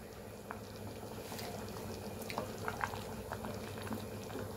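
Vegetable white kurma gravy simmering in an open stainless-steel pressure cooker, bubbling steadily with scattered small pops as a wooden spatula stirs it.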